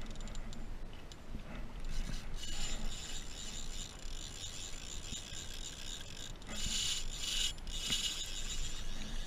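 Penn spinning reel's drag rasping as a hooked tarpon pulls line off against it. It comes in runs, one about two seconds in and another from about six and a half seconds on, over a steady low rumble.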